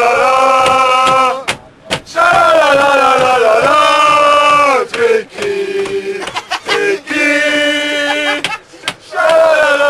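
Men chanting a sports fan chant at full voice, in long drawn-out sung phrases separated by short breaks, with a few shorter shouts in the middle.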